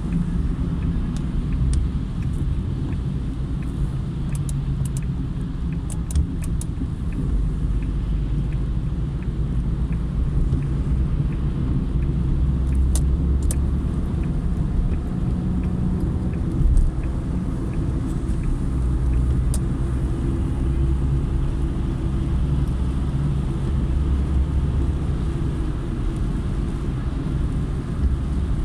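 Car driving along a rain-wet highway: a steady low rumble of engine and tyres, with a few faint sharp ticks now and then.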